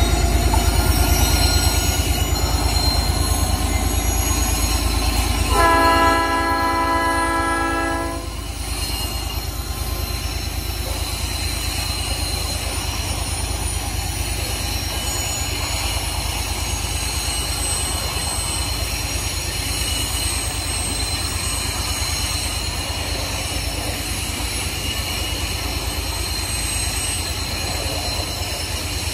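US Gypsum narrow-gauge train passing: the diesel locomotive works by with a heavy low rumble and sounds its horn once, for about two seconds, about six seconds in. After the horn the rumble drops a little and the gypsum hopper cars roll on with steady wheel noise on the rails.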